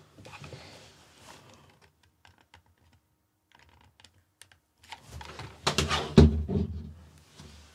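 Light clicks and knocks of a hot glue gun and small parts being handled on a tabletop, with a louder cluster of clicks and a thud about five to six and a half seconds in.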